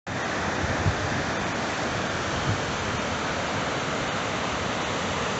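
Gullfoss waterfall, water rushing and crashing into the gorge: a steady, unbroken rush of noise.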